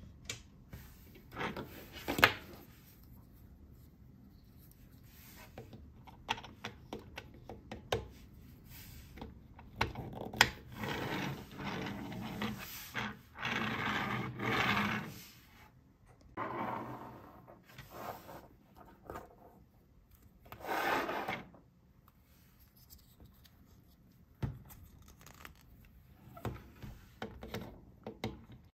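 Small plastic toys handled on a tabletop: a toy ice cream cart pushed across the surface in several rubbing, scraping stretches, with scattered clicks and taps as plastic figures are set down.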